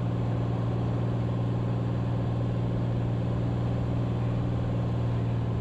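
Cessna 182T's Lycoming IO-540 six-cylinder engine and propeller droning steadily in flight, heard from inside the cabin as a constant low hum.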